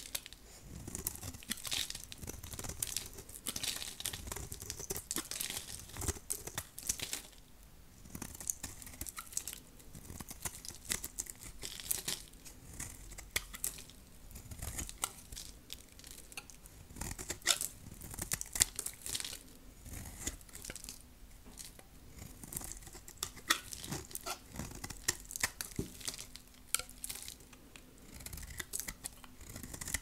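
A blade cutting and carving very dry, hard soap: a dense, irregular run of crisp crunching and crackling strokes, with a few louder snaps around the middle.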